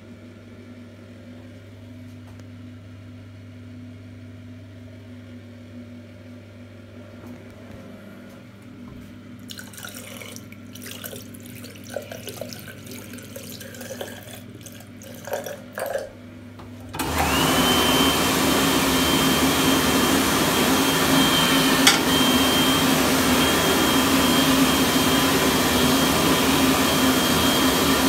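Low steady hum, then a tap running as hands are rinsed. About seventeen seconds in, a Wandsworth HD1/T (Anda Series 3000) hand dryer starts suddenly and runs at full blast: a loud rush of air with a steady high tone.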